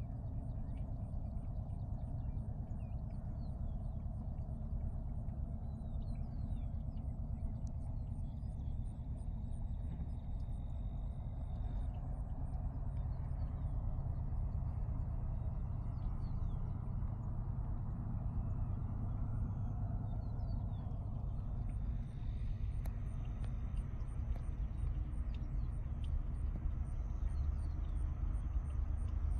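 Low, steady rumble of an approaching BNSF train, building slowly, with birds chirping over it.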